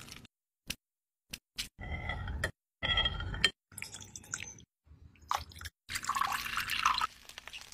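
Short food-prep sounds cut one after another: a few light clicks, then several bursts of liquid pouring and dripping. About six seconds in, liquid is poured over ice into a glass.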